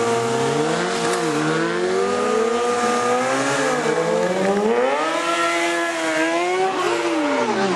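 Sport motorcycle engine held at high revs during a rear-tyre burnout, with the hiss of the spinning, smoking tyre. The revs climb about five seconds in and drop away near the end.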